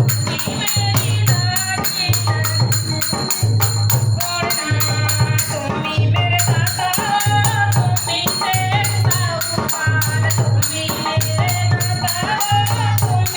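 Devotional Hindi song to the Mother goddess: a sung melody over a steady pulsing bass beat, with a rattling percussion ticking along.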